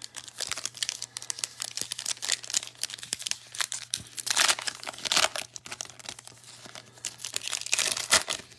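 Foil trading card pack wrapper crinkling in the hands and being torn open at the top, a dense crackle with two louder stretches of ripping, one midway and one near the end.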